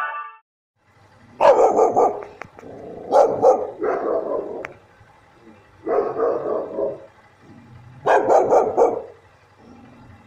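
A chow chow barking in five bursts a second or two apart.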